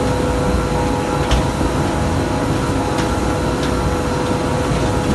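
Cotton seed oil pressing machinery running steadily, with an even low rumble and a steady mid-pitched hum. A few faint ticks come through now and then.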